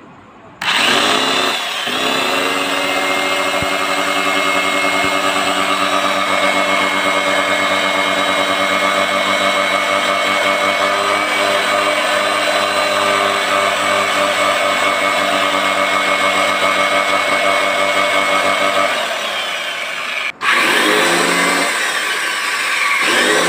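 Repaired 230 V, 1300 W electric chainsaw motor switched on, spinning up within a second and then running steadily with a high whine. This is a test run after new carbon brushes were fitted. It cuts off abruptly about twenty seconds in and then runs again.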